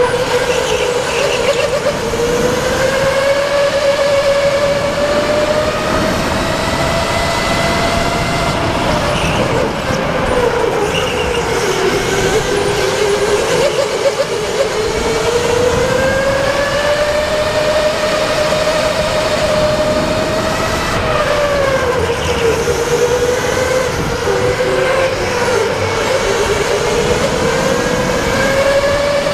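Go-kart motor whining as the kart laps, the pitch rising and falling with speed through the corners and straights.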